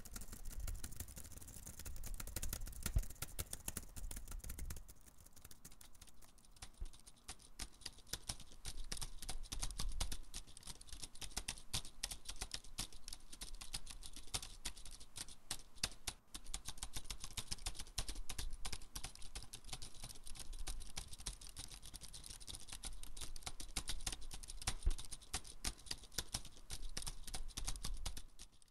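Typing on a laptop keyboard: a steady, irregular run of light key clicks that thins out for a few seconds around the fifth second, then picks up again.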